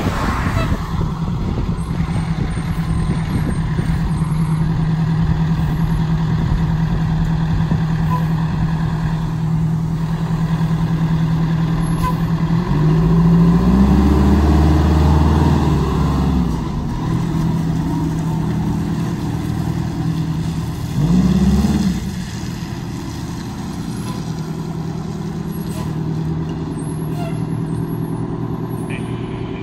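Fire engine running steadily, its engine revving up and pulling louder about halfway through as the pumper makes its turn, revving once more a few seconds later, then settling back to a steady run.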